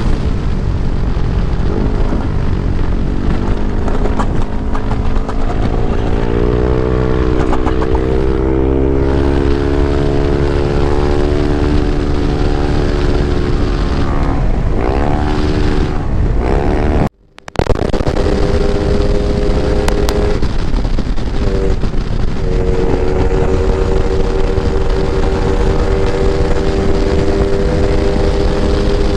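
Yamaha NMAX 195cc scooter's single-cylinder engine running at road speed, its pitch rising and falling with the throttle, over heavy wind rumble on the microphone. The sound cuts out for about half a second a little past halfway.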